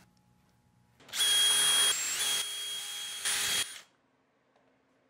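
Cordless drill/driver running in one burst of about three seconds, driving a screw into a pine board: a steady high motor whine that dips in pitch briefly partway through, swells again near the end and cuts off abruptly.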